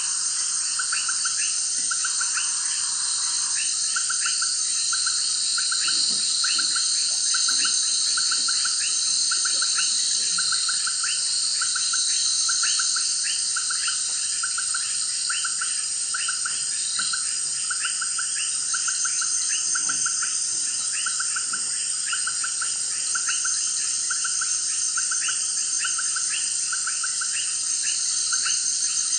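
Tropical rainforest chorus of insects and other calling animals: a dense, steady high-pitched insect drone, with a short pulsed call repeating about once a second and many quick chirps over it.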